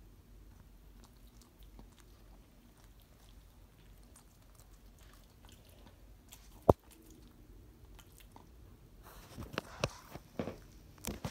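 Pekingese dog chewing and biting at a foot, faint soft mouthing sounds. A single sharp knock about two-thirds of the way through, then several louder scuffs near the end.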